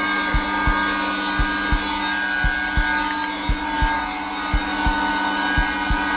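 Zelmer vacuum cleaner running steadily on its lowest power setting, a constant motor hum and hiss, with a heartbeat laid over it: soft low thumps in lub-dub pairs, about one beat a second.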